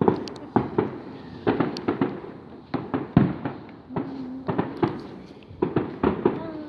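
Fireworks going off: an irregular string of sharp bangs and pops, about two or three a second, some much louder than others.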